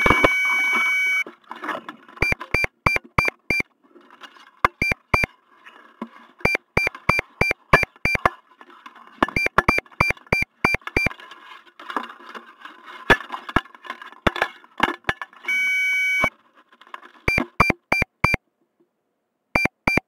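Rocket altimeter, a PerfectFlite StratoLogger CF, beeping after landing: a long high tone, then groups of short beeps that count out the flight's peak altitude digit by digit. The sequence starts over with another long tone about three-quarters of the way through. A quieter rustling hiss runs underneath.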